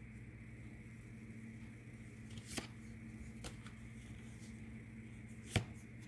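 Cards being handled: a few sharp clicks and taps, the loudest about five and a half seconds in, over a faint steady low hum.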